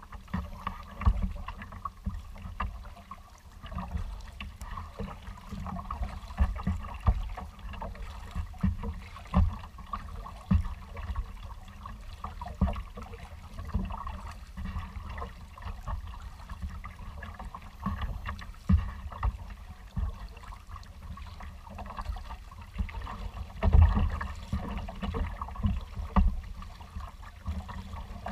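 Choppy water slapping and lapping against a kayak's hull, in irregular low thumps every second or so, over a steady wash of wind and water noise.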